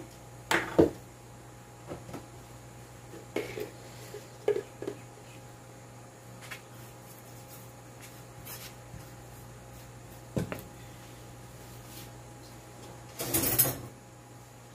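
Kitchen handling sounds: scattered knocks and clicks as a mayonnaise jar and a table knife are handled and mayonnaise is spread on a flatbread on a paper plate. A short scraping rustle near the end is the loudest sound, over a steady low hum.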